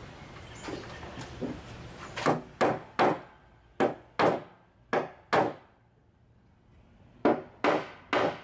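A tool striking wood: about ten sharp knocks, mostly in quick pairs with short pauses between.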